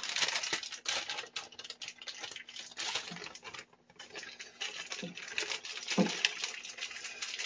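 Water spattering around a newly fitted ball valve on a main water line: irregular pattering and crackling clicks over a hiss that thins out about halfway through.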